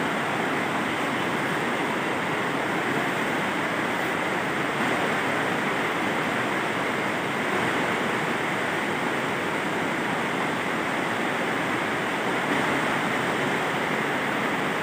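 Steady, even rushing noise with no change in level and no distinct events.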